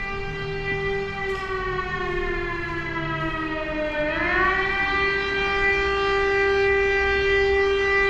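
Air raid siren sounding a long steady tone that sags in pitch for a couple of seconds, then swings back up about four seconds in and carries on louder. The siren is close by and loud.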